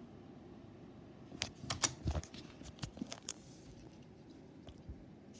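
Lego brick pistol being worked by hand: a quick flurry of sharp plastic clicks and clacks lasting about two seconds, then a couple of faint ticks and one loud click at the end.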